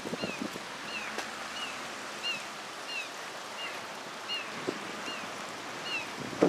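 Steady rush of fast-flowing river water with light wind, and a short high chirp repeating about every two-thirds of a second.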